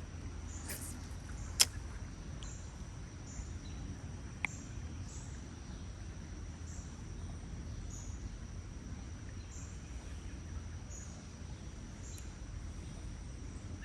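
Insect chirping in a high, thin band, pulsing about once a second, over a steady low rumble. A sharp click sounds near two seconds in.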